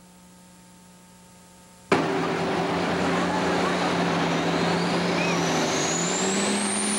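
A low hum for about two seconds, then a sudden cut to a super stock pulling tractor's turbocharged diesel running loud under load. From about four and a half seconds in, a high whine climbs steadily as its turbochargers spool up.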